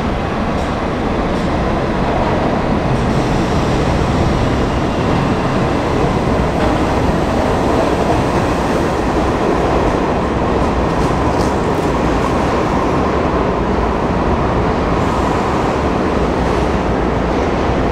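New York City subway train pulling into an underground station, its wheels and cars rumbling and rattling on the rails, with a faint high whine. The sound builds over the first few seconds as the train comes alongside, then holds steady as the cars pass close by.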